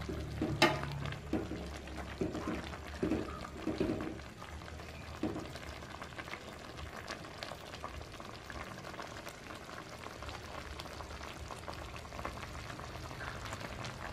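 Coconut-milk vegetable stew simmering in a metal pot with a steady soft bubbling. In the first few seconds a metal spoon stirs through it, with a sharp clink against the pot under a second in.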